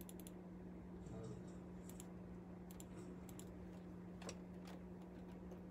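Faint, scattered clicks and taps of a computer mouse and keyboard, over a steady low hum.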